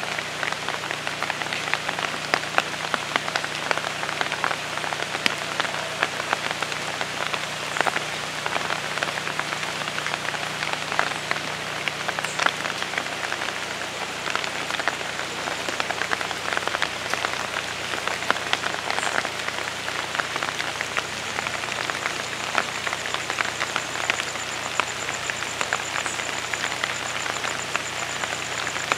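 Steady rain falling on foliage and wet ground, a dense hiss made of countless individual drop hits. From about two-thirds of the way through, a faint high-pitched, fast-pulsing trill joins in.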